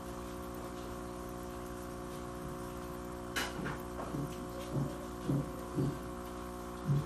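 A steady low hum made of several steady tones. About three and a half seconds in there is a click, followed by a run of short low hoots, about two a second.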